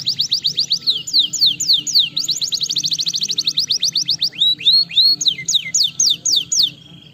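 Canary singing: fast trills of rapidly repeated falling whistled notes, about ten a second, turning after about four seconds into slower, longer swept notes, and stopping shortly before the end.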